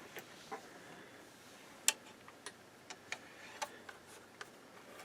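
Multimeter probe tips clicking and tapping against the leads of output transistors: about eight irregular small clicks, the sharpest about two seconds in.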